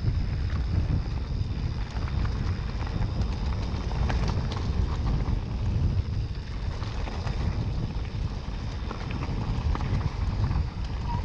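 Wind buffeting the microphone in a steady low rumble while a mountain bike is ridden over a rough dirt trail, with tyre noise and scattered clicks and rattles from the bike.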